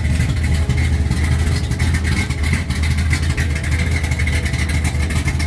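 Hot-rodded 1969 Dodge Charger's engine running steadily at idle, warming up after a cold start, with a loud exhaust. The header leak at the head has been cured, and the exhaust is loud at the rear, where the cutouts are not yet welded on.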